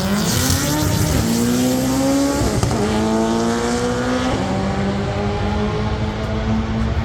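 Drag car's engine accelerating hard down the strip on a solo run. Its pitch climbs in each gear and drops at upshifts about a second and a half apart, three in all, then holds steadier near the end.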